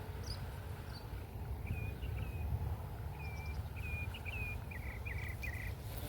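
A songbird singing: a series of short whistled notes, then a quick run of rapid repeated notes near the end, over a steady low rumble.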